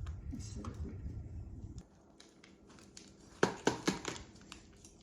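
Plastic cheese packaging crinkling as it is handled, with three sharp clicks about three and a half seconds in.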